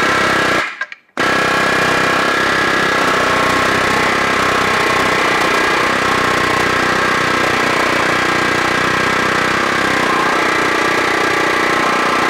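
Snap-on pneumatic air hammer with a flat pounding bit, rapidly hammering a bump out of 1/8-inch steel held against an anvil, with the struck steel ringing. A short first burst stops about half a second in, then the hammering starts again and runs on steadily.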